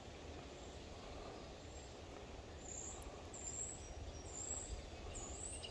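Faint creekside ambience: a bird repeats a short, high, thin down-slurred note about once every 0.7 seconds, starting about halfway through, over low steady background noise.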